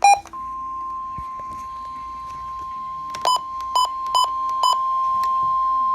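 NOAA Weather Radio's 1050 Hz warning alarm tone: one steady high tone starting just after a short burst, signalling that a warning broadcast is about to follow. Four short, louder beeps sound over it between about three and five seconds in.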